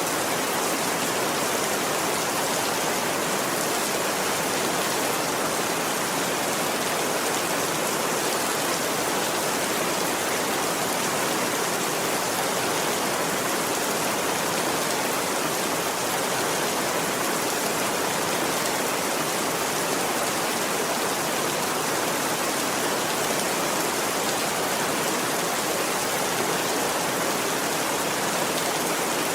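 Steady rain falling, a dense even hiss with no single drops standing out and no thunder.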